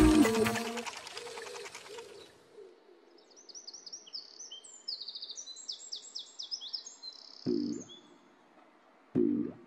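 Music dying away, then birds chirping in quick high repeated phrases for a few seconds. Near the end come two short, dull low thumps.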